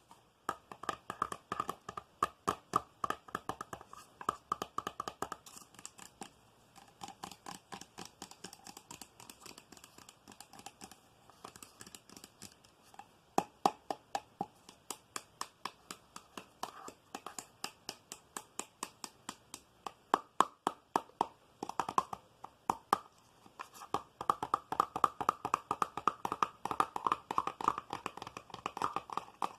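Rapid finger tapping on a hard object: fast runs of sharp taps that pause briefly and then pick up again, densest in the last few seconds.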